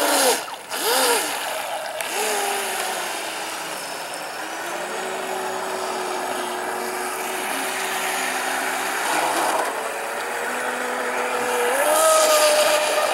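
Electric motor of a Miss Geico radio-controlled speedboat whining as the boat circles on the water, with hull and spray hiss. The pitch rises and falls with the throttle: quick blips at the start, a steady whine through the middle, and a rise again near the end.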